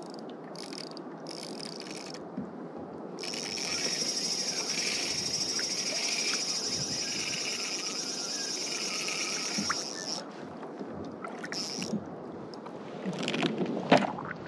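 Water and wind noise around a fishing kayak at sea. For about seven seconds in the middle, a high, pulsing buzz rises over it, and a few knocks come near the end.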